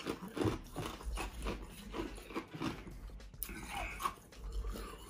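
Quiet, irregular wet clicks and smacks of someone chewing and eating.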